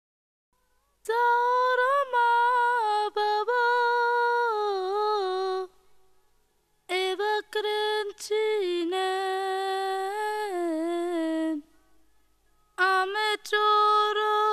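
A lone voice humming a slow wordless melody in three phrases, long held notes sliding from pitch to pitch, with short pauses between the phrases.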